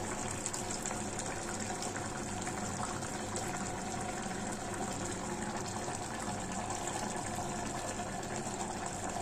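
A pot of aviyal, a thick coconut and vegetable curry, bubbling steadily at a simmer, with tamarind water squeezed from a hand trickling into it.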